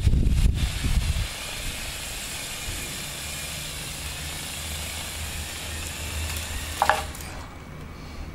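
Lego Technic electric motors and plastic gearing whirring steadily as the model recovery truck works, after a low rumble in the first second. A short falling squeak comes about seven seconds in, and the whirring stops just after.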